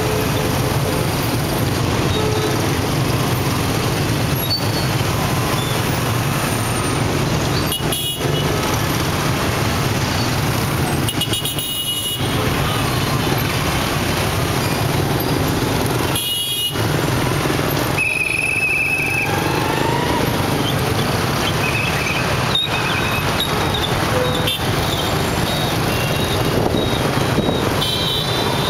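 Dense motorbike and car traffic heard from the back of a moving motorbike: many small engines running steadily close by, with a short horn beep now and then.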